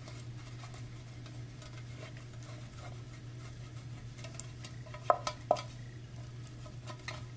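Hand rubbing butter around the inside of a metal loaf pan: faint scraping and handling noise over a steady low hum, with two sharp clinks a little after five seconds in, half a second apart.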